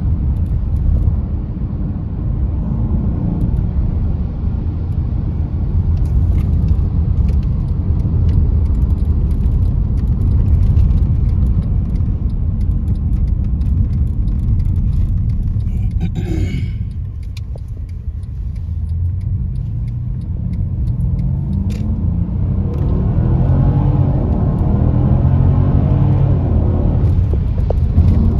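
Low, steady rumble of a car's engine and tyres heard from inside the cabin while driving, dipping briefly a little past the middle.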